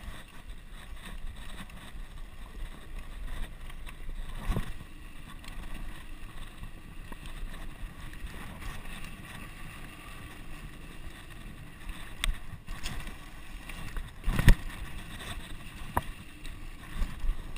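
Mountain bike riding fast down a dirt singletrack: a steady rush of wind and tyre noise, broken by a handful of sharp knocks as the bike hits bumps, the loudest a little past the middle.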